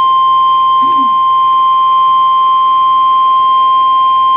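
NOAA Weather Radio's 1050 Hz warning alarm tone: one loud, steady single-pitch tone. It is the signal that a weather watch or warning message is about to be broadcast.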